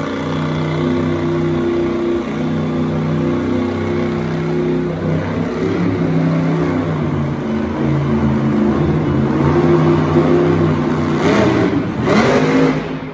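Grave Digger monster truck's supercharged V8 running hard under throttle while the truck holds a wheelie on its rear wheels, the engine note wavering as the driver works the throttle. It grows louder in the second half and swings quickly up and down in sharp revs near the end.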